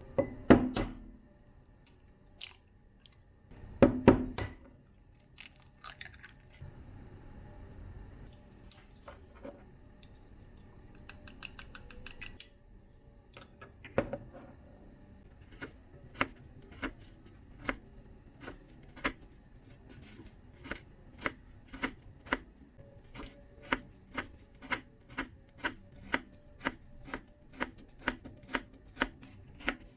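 Food being cut in regular sharp strokes, steadying to about two a second in the second half, after two louder knocks near the start.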